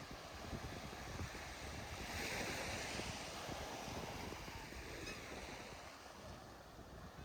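Surf breaking and washing up the beach, one wave swelling to its loudest about two to three seconds in and then fading, with wind buffeting the microphone.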